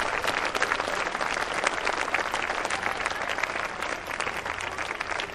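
An audience applauding: dense, steady clapping from many hands, easing slightly near the end.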